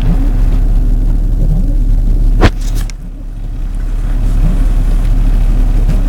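Car engine and road noise heard from inside the cabin: a steady low drone while driving, with one sharp knock about two and a half seconds in.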